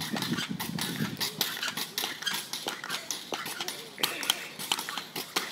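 Two pogo sticks bouncing on asphalt: a quick, uneven run of clacks as the tips strike the pavement, with a light metallic rattle from the sticks.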